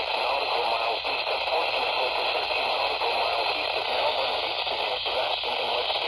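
Radio receiver tuned to a weak station: steady hiss and static with faint, garbled broadcast audio under the noise.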